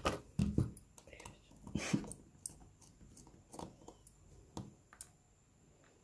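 Small knocks and clicks of a Samsung Galaxy S4 being handled on a mat and its frame screws worked with a small screwdriver. A cluster of sharp taps comes in the first two seconds, with a brief high squeak about a second in, then lighter scattered clicks.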